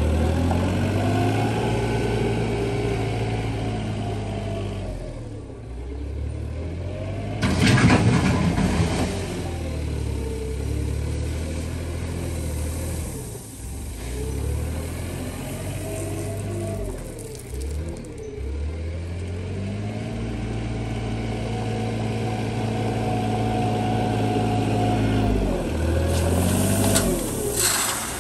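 Small wheel loader's diesel engine running and revving up and easing off several times as it works. A loud rattling crunch comes about eight seconds in, and another rush of noise comes near the end.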